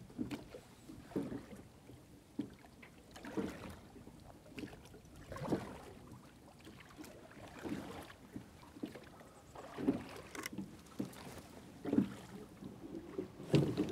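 Water splashing softly against a small aluminium boat's hull as it is poled slowly along the reeds, in irregular soft splashes about every second.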